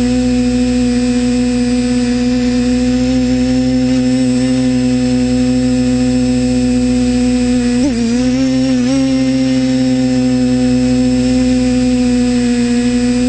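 Electric motors and propellers of an FPV drone, heard from its onboard camera: a steady, loud droning hum whose pitch wobbles briefly about eight seconds in as the throttle changes, then settles again.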